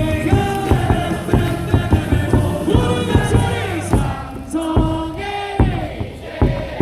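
A stadium cheer song played loud over the loudspeakers, with the crowd singing and chanting along to a steady beat.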